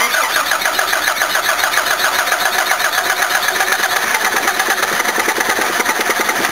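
Toyota HiAce van's carburetted engine cranking on the starter motor in a steady pulsing rhythm without catching, then the cranking stops at the end. The engine is badly flooded with petrol, which the owner puts down to an overflowing carburettor float bowl with a stuck needle and seat.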